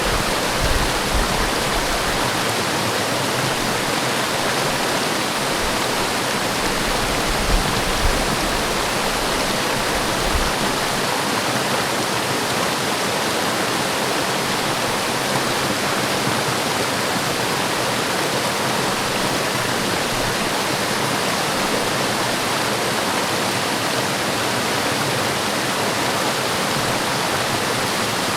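Forest waterfall: a steady, even rush of falling water, with a few brief low bumps in the first ten seconds.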